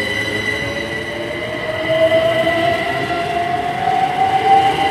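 A pair of Class 387 electric multiple units accelerating away from the platform, their traction motors whining with a pitch that rises steadily, over the rumble of the train passing, with a steady high tone above.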